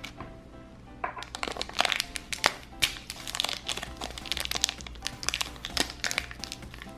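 Thin plastic wrapper crinkling and crackling as fingers unfold it around a small toy, a busy run of sharp crackles starting about a second in. Background music plays underneath.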